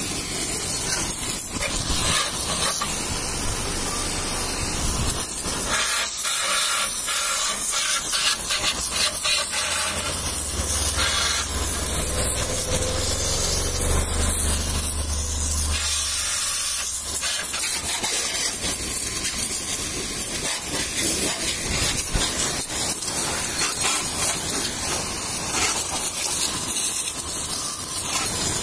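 High-pressure washer jet spraying water onto a motorcycle's wheel and frame, a steady loud hiss. A low hum joins in for several seconds near the middle.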